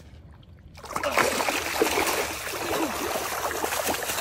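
Heavy splashing and churning water that begins about a second in, as a hooked eel thrashes at the surface while it is hauled up on the line.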